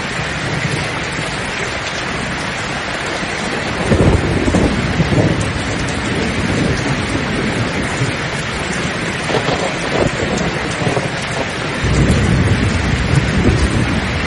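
Steady heavy rain with thunder rumbling, first about four seconds in and again near the end, with a crackling peal in between.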